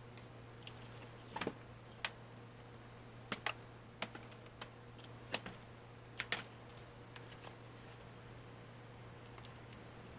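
Irregular sharp clicks and taps of a small screwdriver and fingers on a Chromebook's plastic bottom case and its screws, bunched in the first six or so seconds and sparser after, over a steady low hum.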